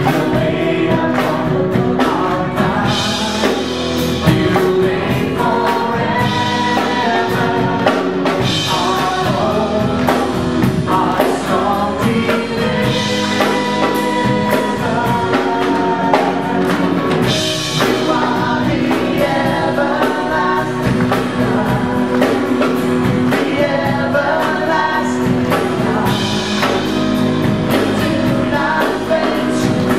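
Live church worship band playing a contemporary worship song, with voices singing the melody together over a steady band and drum kit.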